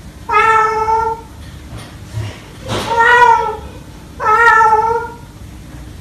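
A cockatoo imitating a cat's meow: three drawn-out, meow-like calls, each about a second long, with pauses between them.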